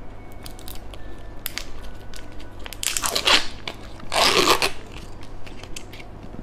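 Thin plastic ice-pop pouch crinkling as it is handled, then peeled open with two louder tearing rips about three and four seconds in.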